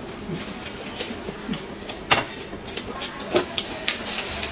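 Close-up eating sounds of two people chewing and smacking on steamed stuffed buns, with scattered sharp mouth and utensil clicks, the loudest about two seconds in.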